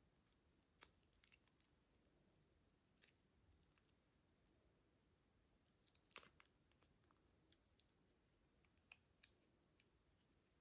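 Faint, scattered small clicks and crackles of close-up hand work on slime materials, the loudest about six seconds in.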